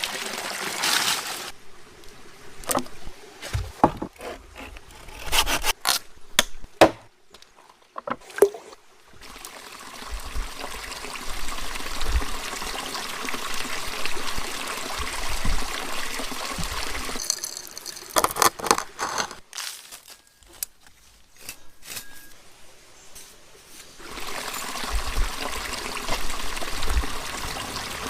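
Water trickling, heard on and off in stretches, with quieter spells of scattered sharp clicks and knocks from handling things between them.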